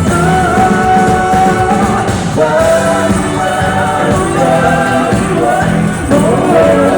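Live pop-rock band music with long held sung notes that waver in pitch, recorded from the concert crowd.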